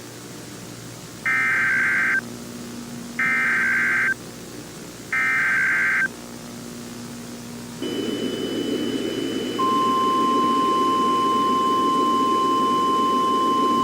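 Emergency Alert System SAME header: three short bursts of warbling digital data tones, about two seconds apart. Then a hiss with a high steady whine comes in, and about ten seconds in a single long steady attention tone begins.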